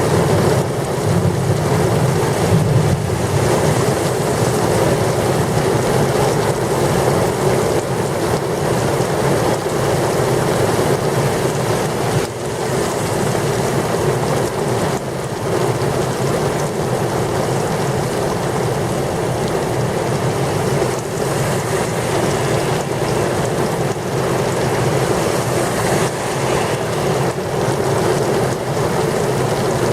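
Heavy rain pouring steadily in a severe thunderstorm, with gusty wind.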